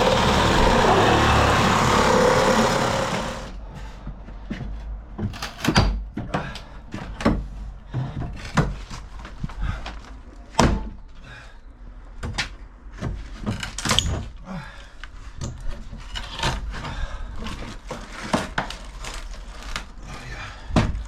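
A loud steady noise that cuts off about three and a half seconds in, followed by scattered knocks and thuds.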